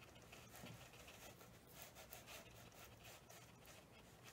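Near silence, with faint scratchy dabs of a watercolour brush on paper.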